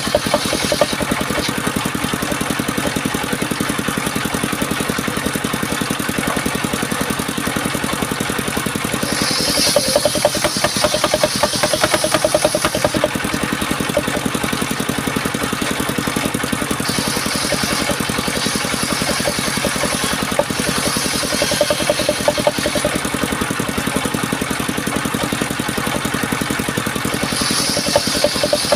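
Engine-driven sawmill saw rig running steadily, the engine chugging with a fast, even pulse. Three times, for a few seconds each, a brighter hissing rasp is added: the blade cutting through a log, about ten seconds in, again near the middle, and near the end.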